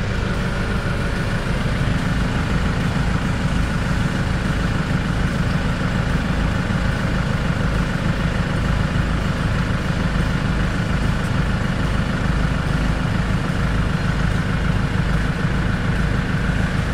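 Air compressor running with a steady, fast low pulsing rumble and a hiss, pumping air through a hose into a 4x4's off-road tyre via an inflator gauge on the valve.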